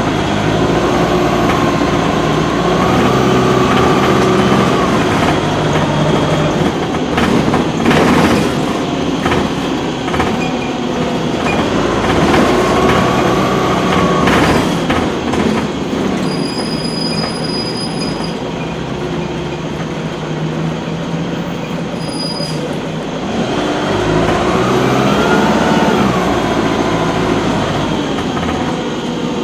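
Cummins ISC diesel engine of a Dennis Dart SLF bus, heard from inside the saloon, worked hard as the bus pulls away and accelerates: its pitch rises and falls back several times as the gearbox changes up, with a whine over the engine. A high beep sounds about halfway through, with a short one a few seconds later.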